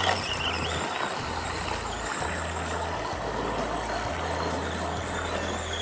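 Redcat Everest-10 1/10-scale RC crawler driving through deep icy water: its electric motor running while the tyres churn and splash the water, a steady rushing noise.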